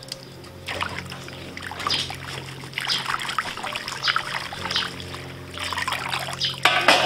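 Water sloshing and splashing in a large stainless steel bowl as cut green plum pieces are stirred and scooped through it with a wire-mesh strainer. Near the end it is loudest, as the loaded strainer comes up and water pours off it back into the bowl.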